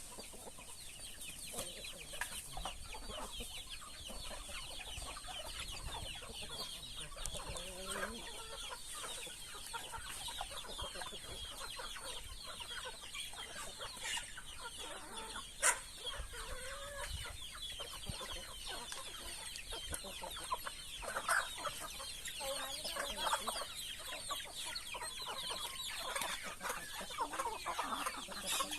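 Chickens clucking on and off, over a constant high chirring, with one sharp click about halfway through.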